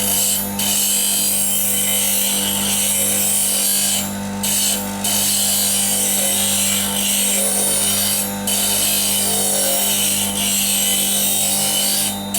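Bench grinder running with a steady hum while a steel woodturning gouge is pressed against its CBN wheel, giving a continuous grinding hiss. The hiss stops briefly about five times as the tool is lifted off the wheel and set back on.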